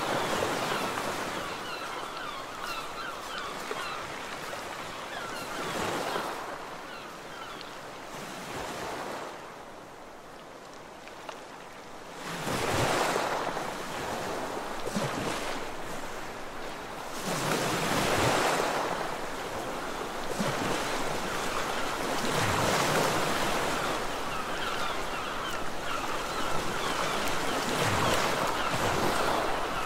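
Sea surf washing onto the shore, with waves swelling and falling back about every five seconds.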